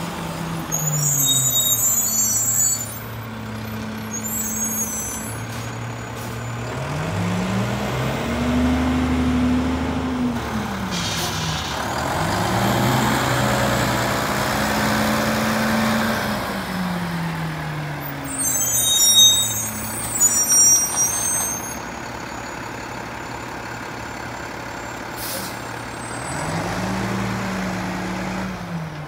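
Diesel engine of a Mack LEU garbage truck with a McNeilus rear-loader body, revving up and settling back several times as the truck pulls ahead and stops along its route. Air brakes hiss near the start and again about two-thirds of the way through.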